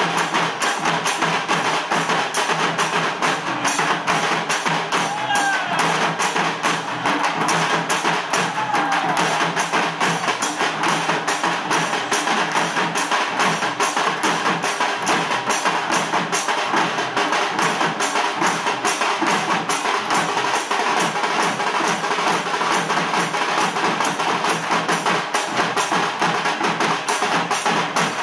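Percussion music: drums struck hard in a fast, even, unbroken rhythm.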